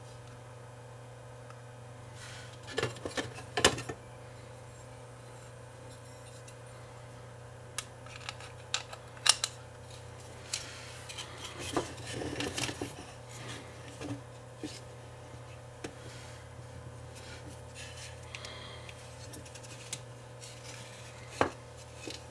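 A Wi-Fi booster's circuit board and plastic housing being handled: scattered clicks, taps and light knocks of the board and small parts against the plastic case, with the loudest knocks a few seconds in, about nine seconds in and near the end, over a steady low hum.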